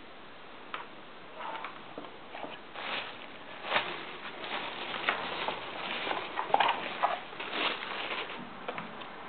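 Handling noise: plastic bubble-wrap packaging rustling and crinkling in irregular bursts, with a few sharp clicks and knocks as a metal-cased PC power supply is turned over by hand.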